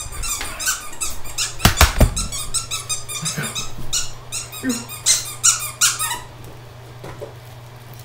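Squeaker inside a plush octopus dog toy squeezed over and over, a quick run of short high-pitched squeaks that stops about six seconds in, with a couple of handling knocks about two seconds in.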